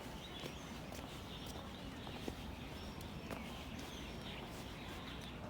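Footsteps on a path with scattered short bird chirps over steady low outdoor background noise.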